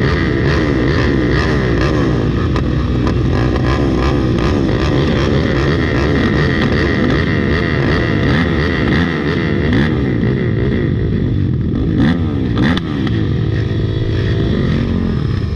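Off-road racing dirt bike engine ridden hard on a trail, its revs rising and falling quickly and over and over as the throttle is worked. Two sharp knocks come about twelve seconds in.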